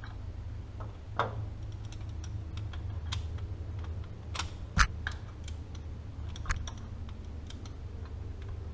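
Scattered metallic clicks and clinks of a long socket and torque wrench being fitted onto a fuel injector of a first-gen Cummins 12-valve, with one louder sharp knock near the middle, over a steady low hum.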